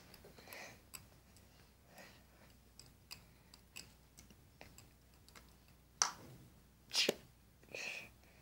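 Scattered small clicks and taps of a paintbrush handle knocking against a plastic tub of water as a cat paws and mouths it, then a few louder knocks about six and seven seconds in, when the brush ends up in the tub.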